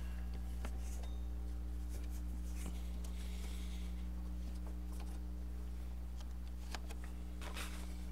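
A steady low electrical hum, with soft rubbing and faint clicks as hands work a new air-conditioning compressor belt around the engine's pulleys; a louder scrape comes near the end.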